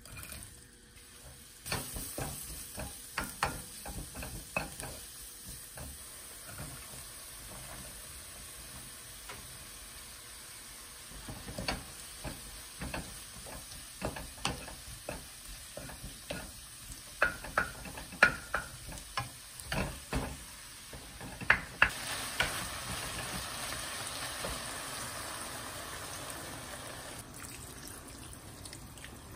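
Chopped green onion and garlic sizzling in chili oil in a nonstick wok, with a wooden spatula knocking and scraping against the pan as it is stir-fried. The sizzling flares up again about two-thirds of the way through, and water is poured into the pan near the end.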